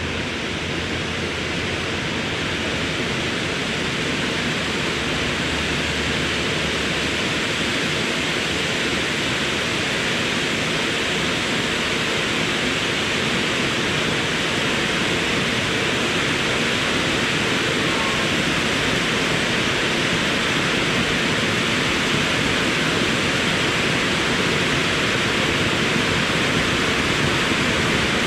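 Several pyrotechnic ground fountains spraying sparks at once: a steady hiss that grows slightly louder over the course of the burn.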